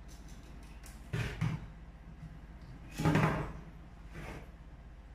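Knocks and clatter of small plastic and metal fan-mounting parts being handled on a tabletop: three short bumps, about a second in, about three seconds in and a softer one just after, over a steady low electrical hum.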